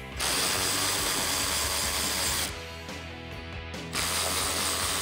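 Cordless drill-driver with a 7 mm socket running in two bursts of about two seconds each, backing out small bolts along the bottom of a car's plastic front bumper lip.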